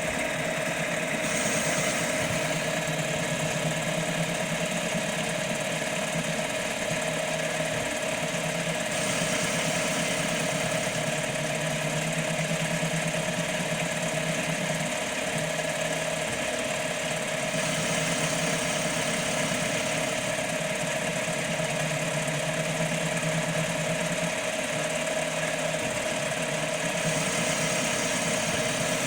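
CNC mini lathe running a program: a steady spindle motor whine with the stepper motors driving the tool feed. The tone shifts every several seconds as the axis moves start and stop.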